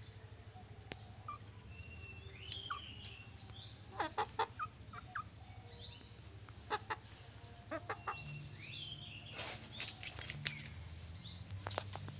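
Brown hens pecking at a slice of bread held out by hand, making short soft clucks. Several runs of quick, sharp taps from their beaks.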